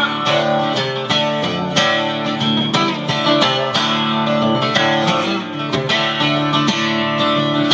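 Guitar in drop D tuning strumming chords alone, an instrumental break between sung verses of a country-style song.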